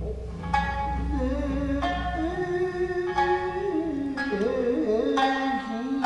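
Tokiwazu jōruri music: a shamisen plucking single notes about once a second, each ringing away, under a singer's long held, wavering chant.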